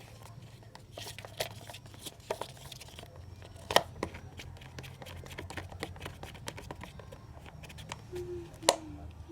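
A plastic spoon stirring thickening glue-and-water slime in a plastic cup: irregular clicks and sticky crackling, with a sharper knock about four seconds in and another near the end.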